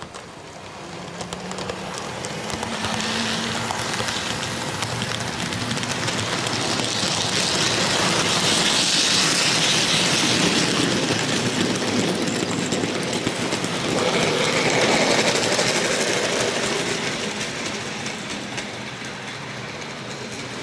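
HO-scale model train of tank wagons running past on the layout's track, wheels and motor rattling along the rails. It grows louder to a peak around the middle and again a little later, then fades toward the end.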